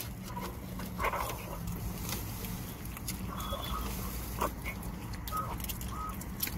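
Chewing and handling of fried chicken nuggets inside a car cabin over a steady low hum, with a few short, faint high-pitched sounds.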